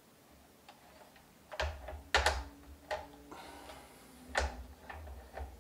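Hard plastic-and-metal clicks and knocks as a Godox LA200D LED video light is handled and fitted onto a light stand, with dull handling thumps. A cluster of sharp clicks comes about two seconds in and another knock just past four seconds.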